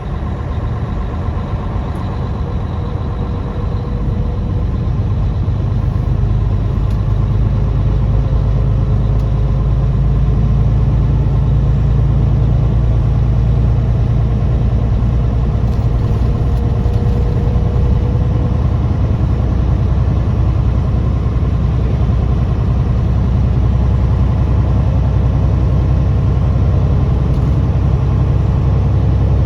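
A truck's engine runs steadily while driving, a low drone that grows slightly louder over the first ten seconds and then holds level.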